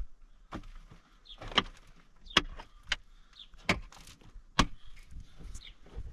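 A short pickaxe striking into the packed earth and rock of a cave wall, one sharp blow about every second, some blows louder than others.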